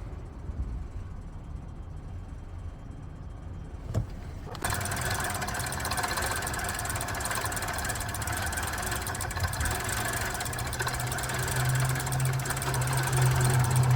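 2015 Audi Q7 being cranked on its starter without firing, a no-start: a click about four seconds in, then steady cranking that begins suddenly and carries on, getting louder near the end.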